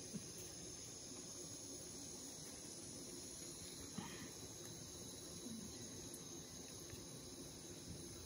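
Crickets chirping steadily in a night-time garden. Two light clicks come just after the start and again about four seconds in.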